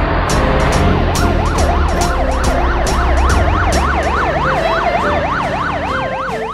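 Police siren sound effect in a fast yelp, its pitch sweeping up and down about three times a second, over a steady backing beat.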